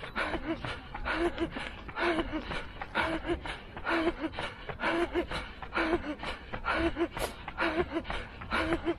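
A runner breathing hard at race pace, with a voiced, gasping breath about once a second, over quick footsteps on a paved path.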